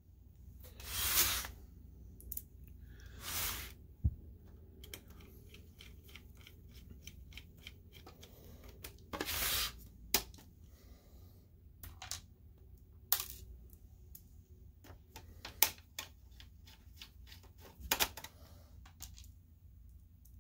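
Bench handling noise during projector reassembly: a few short scraping rubs, with scattered light metallic clicks and taps of small screws and a screwdriver.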